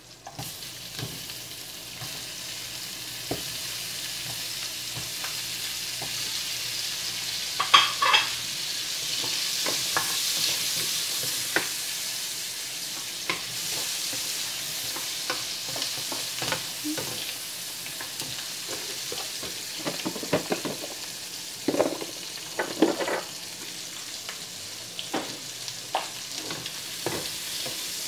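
Chopped onion and garlic sizzling in butter and olive oil in a frying pan, the sizzle jumping up as the onion goes in at the start. A spatula scrapes and knocks against the pan as it is stirred, with louder clatters about eight seconds in and again past twenty seconds.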